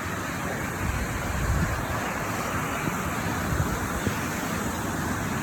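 Waterfall rushing steadily, a constant loud roar of falling water.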